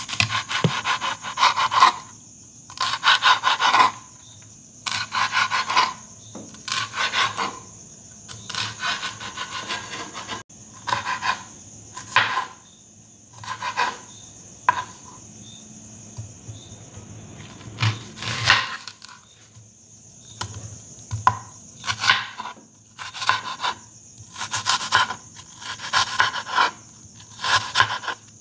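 Chef's knife slicing green bell pepper into strips on a cutting board: short runs of quick cuts with a rasping scrape against the board, broken by brief pauses.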